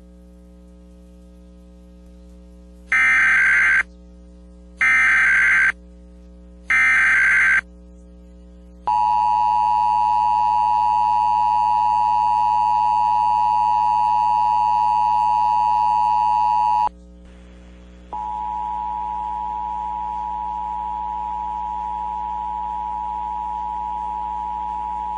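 Emergency Alert System test signal: three short bursts of warbling SAME data tones (the digital header), each about a second long and a second apart. Then the steady two-tone EAS attention signal (853 and 960 Hz) sounds loudly for about eight seconds. After a pause of about a second the two-tone signal comes again, quieter and with hiss, over a steady low hum.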